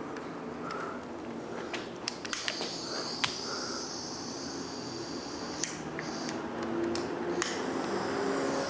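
Heat gun running with a steady hiss and hum while heating solder-seal wire connectors, with several sharp clicks and taps of the wire and tools being handled.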